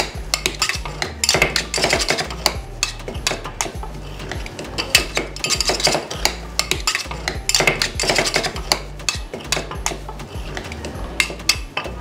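Metal spatulas chopping and scraping ice cream with its mix-ins on a chilled stone slab: quick, irregular metallic clacks and scrapes, busiest in bursts of a second or two.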